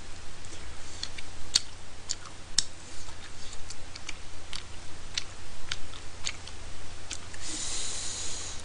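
Close-miked chewing of chewy tteokbokki rice cakes: scattered wet mouth clicks and smacks, about one or two a second, over a low steady hum. A short breathy hiss comes near the end.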